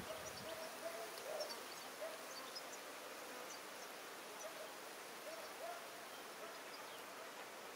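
Steady hiss of water spraying from a homemade oscillating garden sprinkler, with a few short bird calls over it.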